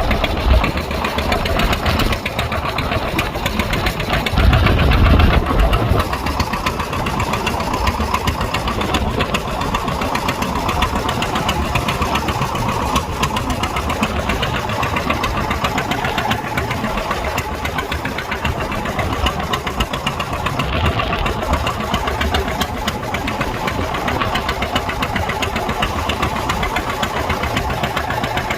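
A fishing boat's engine running steadily, with a louder low rumble for a couple of seconds about four seconds in.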